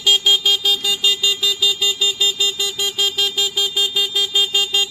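Electric bike's anti-theft alarm sounding: a loud, rapid electronic beeping at a steady pitch, about six beeps a second, stopping abruptly near the end.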